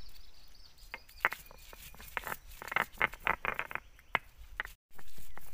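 Irregular sharp clicks and taps, bunching into a quick run around the middle, with a brief total dropout near the end.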